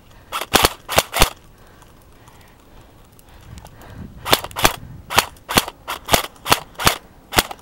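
Airsoft guns firing single semi-automatic shots as sharp cracks. About four come in quick succession at the start, and after a pause of roughly three seconds about nine more follow at two or three a second.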